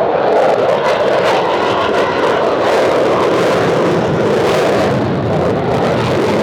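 F/A-18 Hornet jet engines running, a loud, steady rushing noise that holds level throughout.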